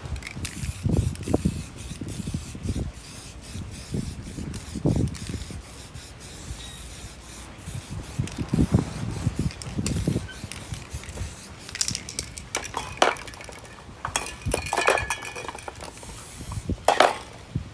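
Aerosol spray-paint can spraying in several short hissing bursts, mostly in the second half. Earlier there are low bumps and rubbing as hands press a paper mask flat against the painted board.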